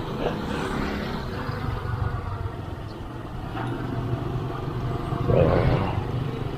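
Motorcycle running steadily at riding speed, with road and wind noise, picked up through a headset microphone worn by the rider.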